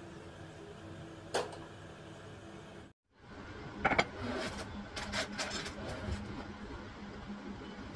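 Kitchen clatter: a single knock of the ceramic mortar and pestle, then, after the sound cuts out briefly about three seconds in, sharp clinks and scattered clicks of a pan and metal utensil at the stove, over a steady low hum.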